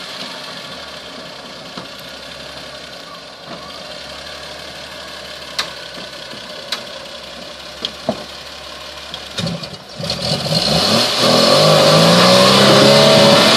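Jeep rock crawler's engine idling quietly under a few sharp clicks, then about ten seconds in revving up and pulling hard, its pitch rising and wavering, as the Jeep climbs over a boulder.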